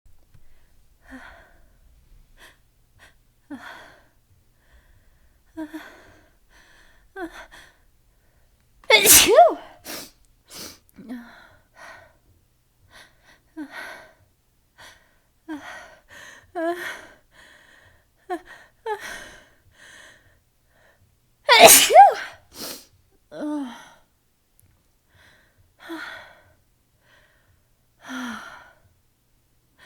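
A woman sneezing: two loud sneezes, one about nine seconds in and one about twenty-two seconds in, each with a smaller sneeze or two right after. Between them come runs of short, catching gasps as the next sneeze builds.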